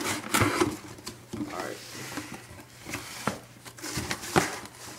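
Packing tape being slit and torn along a cardboard shipping box, then the box flaps pulled open, with irregular scrapes and rustles and a couple of sharp knocks near the end.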